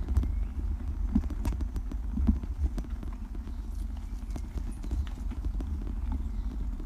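Irregular clicking and knocking of a moving camera rig travelling over a brick-paved street, with a steady low rumble underneath.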